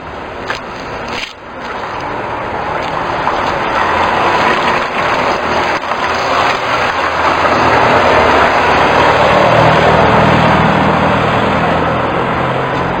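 A motor vehicle passing close by: engine hum and road noise growing louder over several seconds, loudest about ten seconds in, then easing slightly.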